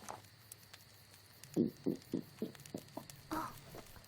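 Anime sound-effect stomach growl: an empty stomach growling with hunger in a quick run of about seven short pulses, starting about a second and a half in.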